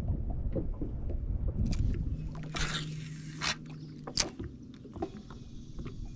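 Fishing tackle handling on a boat deck as a spinning rod is cast: scattered knocks, a brief whoosh near the middle of the cast with a short steady hum under it, and a sharp click about four seconds in.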